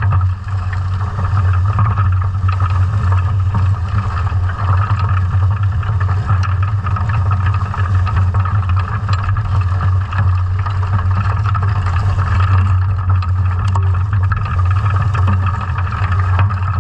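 Muffled underwater noise of a sea scallop dredge under tow: a steady low drone with a rushing band of water noise above it and a few faint scattered clicks.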